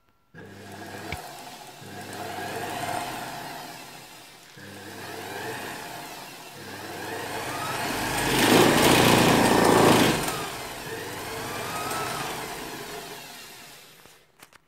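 Freshly cleaned Pfaff 138-6-U industrial sewing machine running on its Lauro motor. It starts about half a second in, its speed and loudness rise and fall, it is fastest and loudest a little past the middle, and it slows to a stop near the end.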